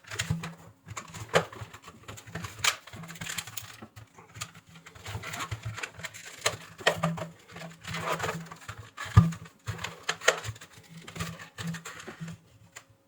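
Irregular clicks, taps and knocks of small plastic and metal parts being handled: a hand-held hair dryer's plastic housing being fitted back together.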